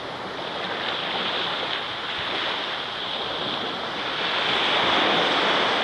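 Small waves breaking and washing up a sandy beach, the surf swelling louder about four seconds in.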